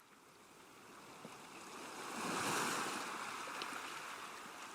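Ocean surf fading in from silence, one wave swelling to a peak about two and a half seconds in and then washing back to a steady hiss.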